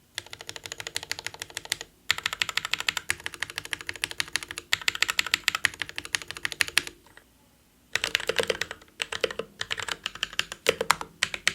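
Mechanical keyboard typed on quickly in bursts of rapid keystrokes, with brief pauses about two seconds and about seven seconds in. After about eight seconds the keystrokes come more unevenly and have a deeper clack.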